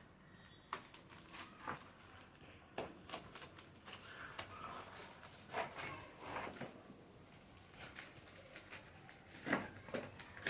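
Keyboard packaging being handled: cardboard box and insert and a plastic bag, with scattered faint rustling, crinkling and light knocks, a couple of sharper knocks near the end.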